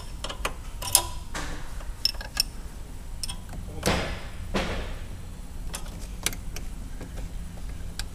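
Wrench on the brake-line flare nuts of a Buick Powermaster brake unit as they are loosened: scattered sharp metal clicks and taps, with two brief noisy sounds just after the middle.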